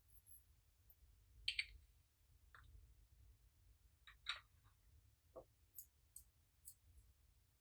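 Faint, scattered clicks and small taps, about seven in all, the loudest a couple of sharp clicks early on and a lower knock past the middle, with near quiet between them.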